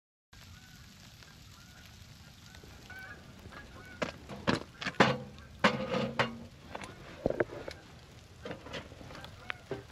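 Geese honking, a flock calling over and over, with the loudest calls coming in a cluster about four to six seconds in.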